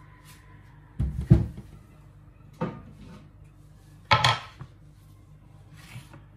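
Three bursts of clattering wooden knocks, about one, two and a half and four seconds in, as a wooden cutting board is fetched and laid down on a granite countertop.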